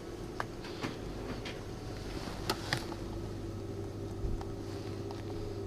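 Shop room tone: a steady electrical hum with a few small, scattered clicks and knocks.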